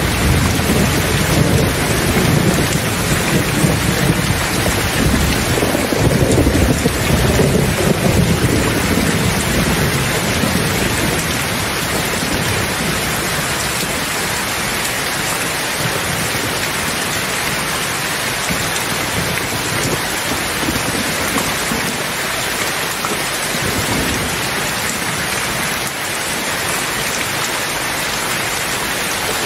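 Steady rain hissing, with a long roll of thunder at the start that rumbles on and dies away about ten seconds in. A fainter low rumble comes again near the end.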